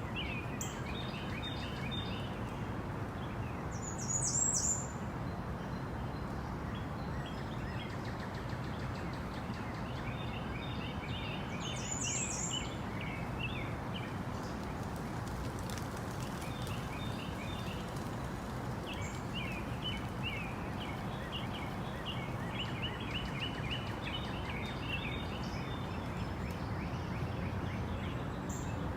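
Tropical rainforest ambience: birds chattering and calling in repeated short runs over a steady background hiss, with brief high-pitched calls about four seconds in and again about twelve seconds in.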